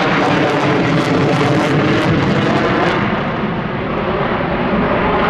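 Boeing F/A-18 Super Hornet's twin GE F414 turbofans in afterburner, a loud steady jet roar with crackling in the first three seconds. The crackle and the highest hiss then fade, and the roar eases a little.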